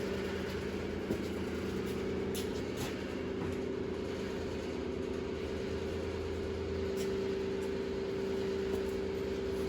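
Steady machine hum, even and unchanging, with a few faint light clicks over it.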